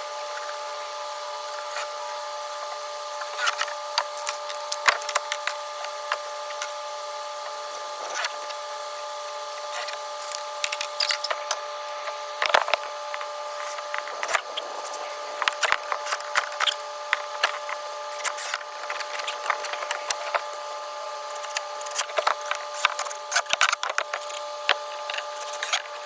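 Irregular clicks and knocks of wood and hand tools being handled during shed framing, over a steady multi-tone whine.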